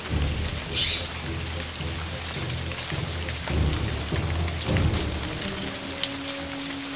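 Steady rain falling, with many separate drops over a low rumble. A brief hiss comes about a second in, and a held low musical tone enters near the end.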